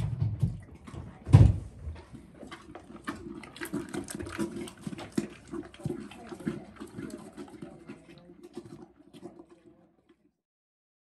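A pony eating from a rubber feed bowl: a run of crunching, chewing and muzzle-on-bowl knocks, with one heavy thump about a second and a half in.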